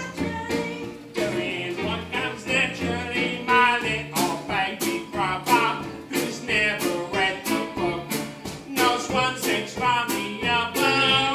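Live band playing a song with a steady beat, with singing over it.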